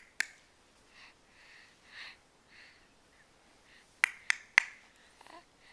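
Sharp snapping clicks: one just after the start, then three in quick succession about four seconds in, with faint soft sounds between them.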